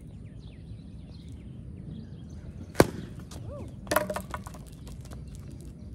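Yellow plastic wiffle bat hitting a wiffle ball with one sharp crack, then about a second later the dropped bat clattering and bouncing on the pavement.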